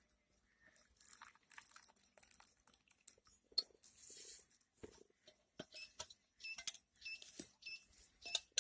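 Kitchen utensils handled while the hot kadha is served: scattered light clinks, knocks and scrapes, a short rushing sound about four seconds in, and several brief metallic rings in the second half.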